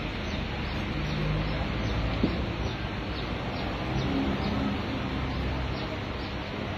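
Steady background noise with faint bird chirps scattered through it, and a single sharp click a little past two seconds in.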